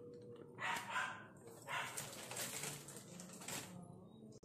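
Plastic flour packet crinkling and rustling as maida is poured from it into a glass bowl and the packet is put aside. It comes as two rustles, a short one about half a second in and a longer one around two seconds in.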